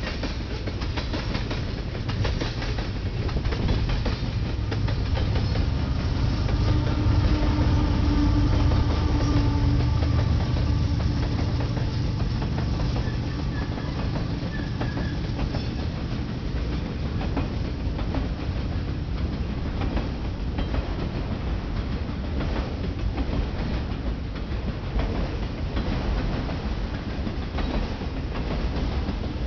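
Freight train rolling past close by: a steady low rumble with the clickety-clack of wheels over rail joints. A louder diesel engine hum swells and fades about six to eleven seconds in as the mid-train distributed-power locomotives go by, followed by tank cars and autorack cars rolling past.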